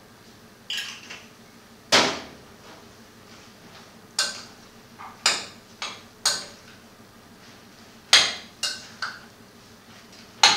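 A utensil clinking and knocking against a glass mixing bowl while a wet batter of grated courgette and carrot is stirred: a string of sharp, unevenly spaced strikes, the loudest about two seconds in.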